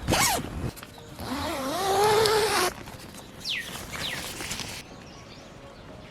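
Morning outdoor sounds: a short rasp at the start, then a wavering call and a couple of quick bird chirps falling in pitch, before a quieter steady background.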